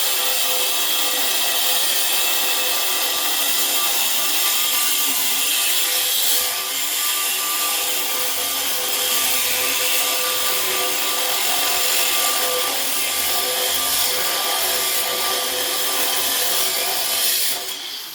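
Power tool cutting steadily into the metal body of a safe, a continuous high, hissing cut with a steady motor tone, stopping near the end.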